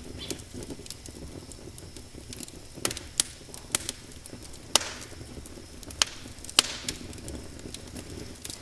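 Wood fire crackling in a fireplace, with a low steady rumble of flames and irregular sharp pops and snaps. The loudest half-dozen come between about three and seven seconds in, some trailing a short hiss.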